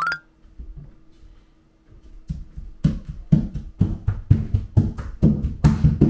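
Quick, heavy thumps of feet stomping and jumping on a wooden hallway floor while dancing, starting about two seconds in at around five a second. A short rising squeal comes right at the start.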